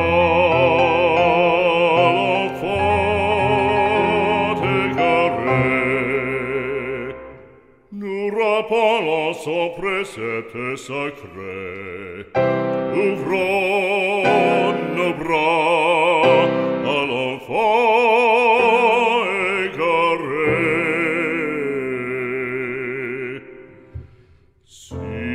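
Music: operatic singing with wide vibrato over an instrumental accompaniment, which drops out briefly about seven seconds in and again near the end.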